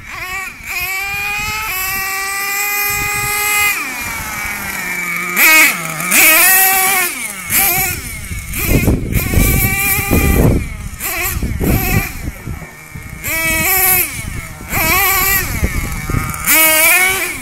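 Axial .32 nitro engine in a radio-controlled monster truck, revving up and down as it is driven: a long high-pitched run for the first few seconds that falls away, then a string of short, sharp rev bursts with the pitch rising and dropping each time.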